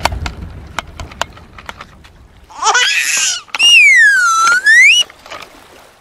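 Cartoon-style sound effects: a short warbling jingle, then a clear whistling tone that swoops down in pitch and back up again over about a second and a half. A few faint clicks come before them.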